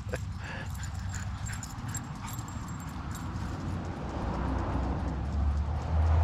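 Two dogs playing on grass, with faint dog whimpers over a low rumble that grows louder near the end.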